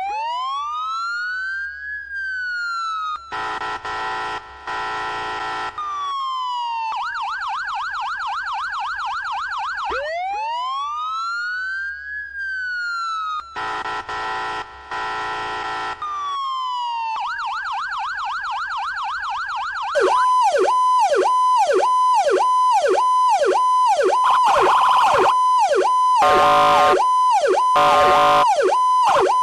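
Emergency-vehicle sirens cycling through patterns: a slow wail rising and falling, a steady horn-like blast with short breaks, then a fast yelp. The sequence plays twice. About two-thirds of the way in, a louder siren takes over with a quick whoop repeating about twice a second, mixed with horn-like blasts near the end.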